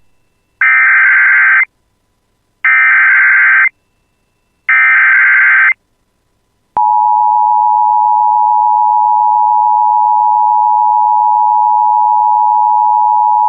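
Emergency Alert System SAME header: three one-second bursts of screeching digital data, a second apart, followed about seven seconds in by the steady two-tone EAS attention signal, which keeps sounding. Together they announce an incoming weather alert.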